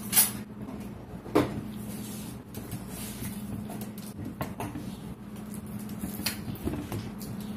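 Handling sounds at a table: two sharp knocks in the first second and a half, then scattered lighter clicks and taps, over a steady low electrical hum.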